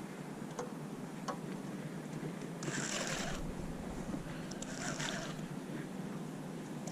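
Steady rush of river water around a drift boat, with two short splashy bursts about three and five seconds in and a few faint ticks.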